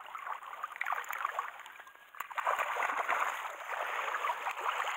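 Hooked Sakhalin taimen thrashing in shallow water as it is drawn to the landing net: choppy splashing and sloshing that grows louder a little past halfway.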